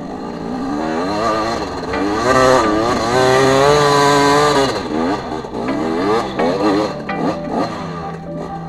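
Dirt bike engine revving hard under load on a steep climb. Its pitch rises and falls with the throttle and is held high and loudest through the middle, then wavers and eases off near the end.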